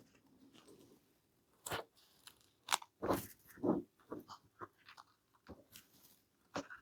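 Scattered short crunches and crackles as the worn, flaking headband cover of a pair of headphones is cut and pulled open, about a dozen separate sounds with the loudest near the middle.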